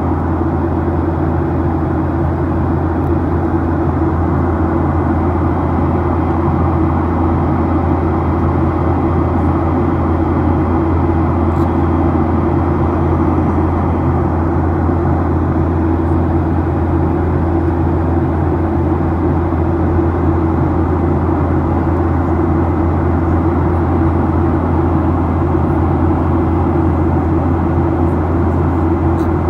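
Boeing 737-800 cabin noise: the CFM56-7B turbofans and rushing air make a loud, steady drone with a low hum, heard from inside the passenger cabin.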